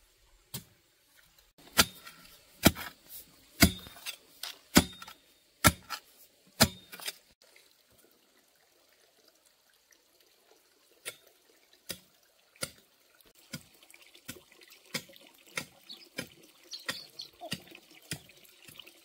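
A series of sharp knocks, six loud ones about a second apart, then after a pause a run of lighter, quicker knocks.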